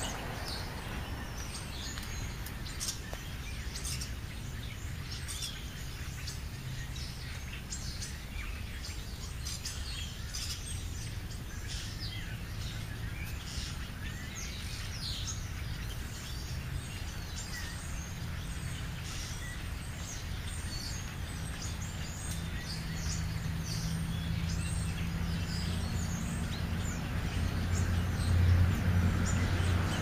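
Small birds chirping and calling again and again in the background over a low outdoor rumble. A low engine hum grows steadily louder over the last third, like a vehicle drawing near.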